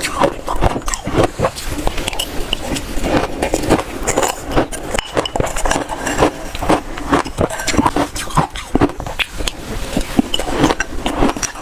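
Shaved ice being bitten into, an unbroken run of crisp, irregular crunches close to the microphone.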